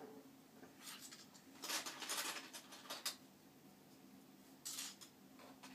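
Small plastic LEGO pieces being handled: faint clicks and rattles in short bursts, the busiest about two seconds in.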